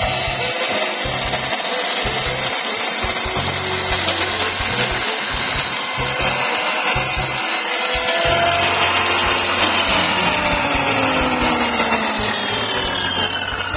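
Electric wet tile saw with a diamond blade running, mixed with background music with a rhythmic beat.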